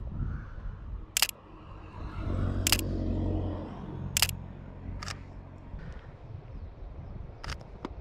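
Sony A7III shutter firing about five times, single sharp clicks spaced one to two seconds apart, over a steady low rumble.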